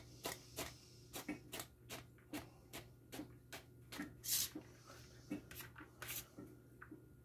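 Kitchen knife chopping carrot sticks into small cubes on a cutting board: short sharp knocks at about two to three a second, stopping shortly before the end.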